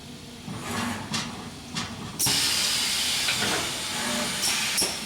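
Compressed air hissing: a few short blasts, then a loud blast that starts suddenly and lasts about two seconds, and more short blasts near the end.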